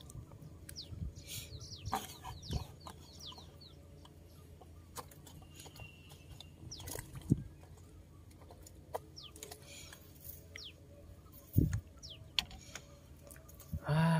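Chickens clucking faintly, with short high chirps and scattered light clicks, and one louder call just before the end.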